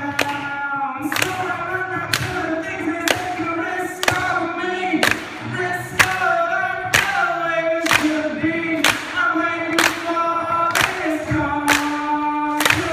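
Live singing of a pop-rock song, mostly long held notes with no clear words, over a sharp beat struck about once a second.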